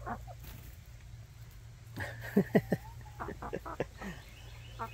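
Hens clucking: after a quiet stretch, a quick run of short, loud clucks about two seconds in, followed by a few softer ones.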